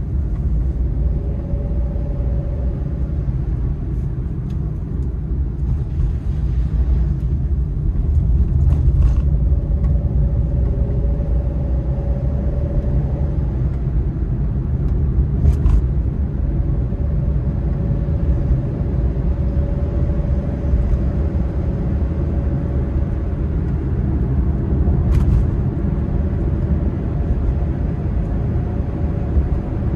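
Steady low road rumble heard inside the cabin of a moving car, with a faint hum that fades in and out and a few light clicks.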